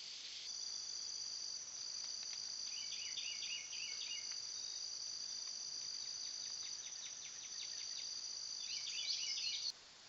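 Insects calling: a steady high-pitched trill with two bursts of short rasping pulsed chirps, one a few seconds in and one near the end. The calls cut off abruptly just before the end.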